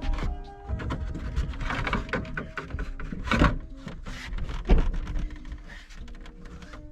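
Irregular clicks, knocks and rattles of hand tools and parts being worked, with two sharper knocks about three and a half and four and three-quarter seconds in.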